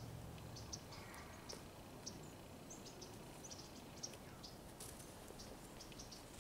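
Faint outdoor ambience with small birds chirping: many short, high, irregular chirps over a quiet background.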